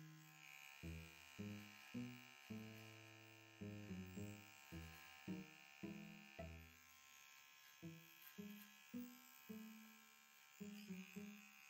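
Faint, steady high whine of a pet nail grinder filing a cat's claws, under soft background music of short low notes.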